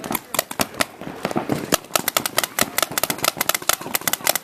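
Paintball markers firing: a fast stream of sharp pops that thickens about halfway through into rapid strings of shots.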